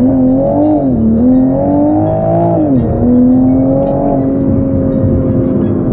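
Toyota GR Supra's turbocharged inline-six engine pulling hard under acceleration. Its pitch climbs and wavers, drops sharply just under three seconds in as it shifts gear, then holds steady.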